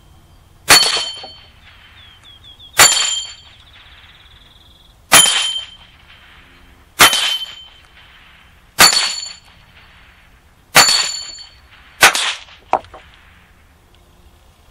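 Rossi RS22 semi-automatic .22 LR rifle fired seven times, roughly one shot every two seconds. Several shots are followed by the high ring of struck steel targets.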